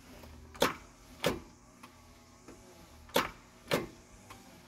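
Tractor ignition key being turned with no cranking: four sharp clicks in two pairs, and the engine does not turn over. No power is reaching the starter, which the owner finds fried.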